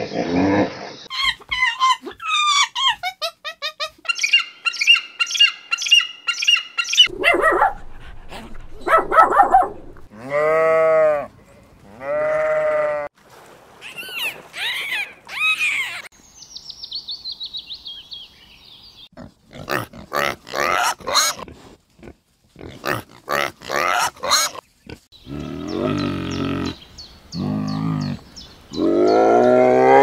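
A string of different animal calls, one after another with short gaps between them. Some are low and pitched, some are high rapid trills, and there is a run of short, sharp calls about two-thirds of the way through.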